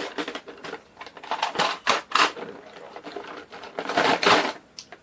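Irregular clicking and rasping of tools and parts being handled and rubbed on a workbench, with two louder scraping stretches, the first a little over a second in and the second about four seconds in.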